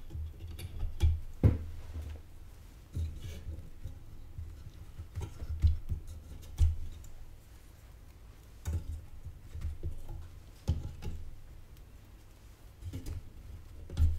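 Hands working on a motherboard on a bench: irregular light knocks, taps and rustles with soft low thumps, with a few sharper knocks about a second and a half in and again between five and seven seconds in.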